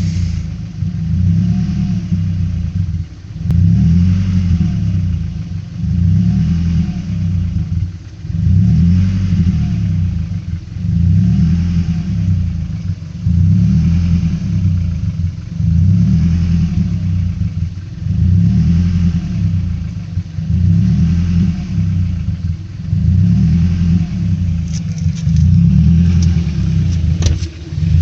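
Peugeot 206 GTi S16's 2.0-litre four-cylinder engine hunting at idle: the revs rise and fall on their own over and over, about every two seconds. The owner traced the surging to a faulty idle control valve.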